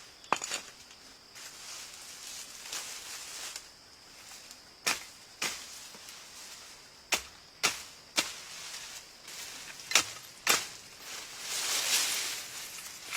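A series of sharp, irregular knocks, about eight of them spaced unevenly, with a rustling swell of noise near the end.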